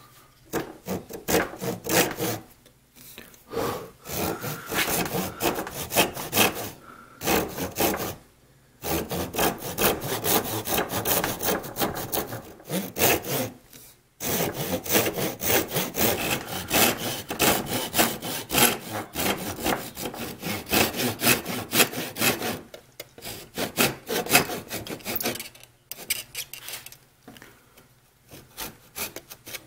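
Japanese pull saw cutting a small wooden block by hand, in quick runs of rasping strokes broken by short pauses. The strokes thin out near the end.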